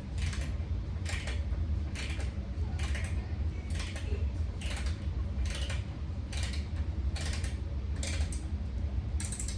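A screw being driven by hand into a wooden table's brace bar, a short creak with each turn, about one turn every 0.8 s, over a steady low hum.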